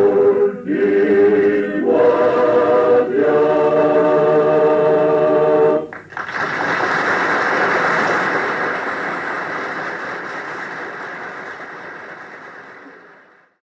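Male vocal octet (otxote) singing a cappella, its last phrases ending on a held chord that stops about six seconds in. Audience applause follows at once and fades out gradually.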